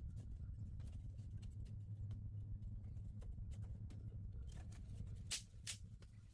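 Scattered light clicks and taps of hand work with thin wooden strips and a hot glue gun, with two sharper clicks about five seconds in, over a low steady hum.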